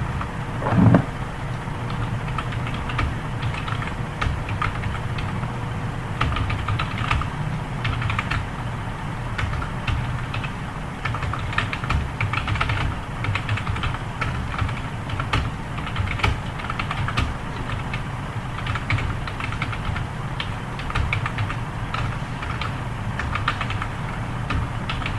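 Continuous fast typing on a computer keyboard, a dense stream of keystroke clicks. A brief louder thump comes about a second in.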